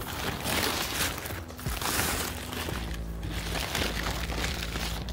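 A tarp rustling and crinkling as it is handled and pulled back off a car body for the first two or three seconds, then settling, with steady background music underneath.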